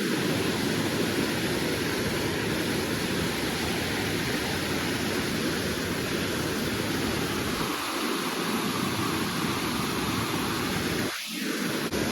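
Steady rushing of a creek waterfall, an even wash of water noise that dips briefly about eleven seconds in.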